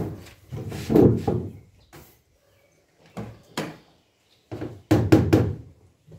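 Hammer blows nailing a cut plastic drum panel onto a boat's wooden frame: clusters of sharp knocks with short pauses, a quick run of several blows about five seconds in.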